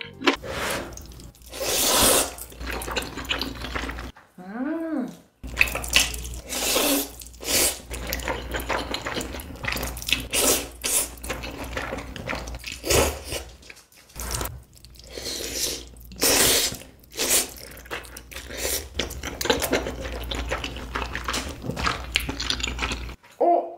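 Close-miked mukbang eating sounds: chewing, then repeated wet slurps of black bean noodles being sucked up from chopsticks.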